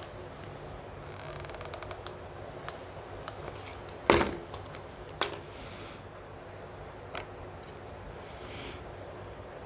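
Handling noises from a hot glue gun, popsicle sticks and cardboard on a tabletop: scattered light clicks and taps, with two sharp knocks about four and five seconds in as things are set down.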